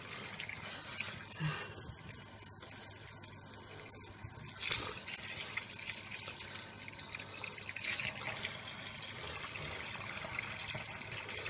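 Cold water running from a kitchen tap into a stainless steel pot of wool, with hands pressing the wet wool under. There is a brief splash about halfway through.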